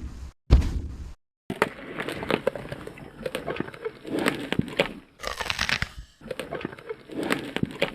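A short, loud, low burst, then a crackling, crunching noise made of many small clicks, in three stretches broken by brief pauses about five and six seconds in.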